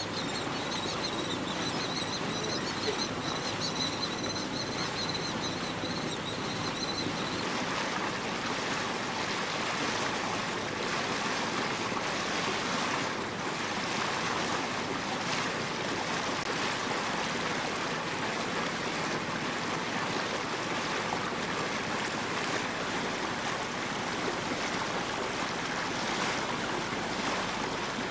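Steady rush of water along the hull of a small sailing yacht under way. A faint high whine sits over it for the first several seconds, then stops.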